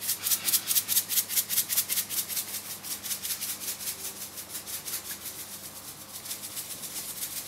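Salt grains rattling in a plastic salt shaker shaken quickly, about seven shakes a second, growing fainter toward the end.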